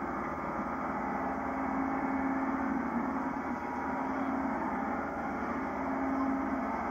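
Boat engine running steadily with a constant low hum, under a haze of wind and water noise.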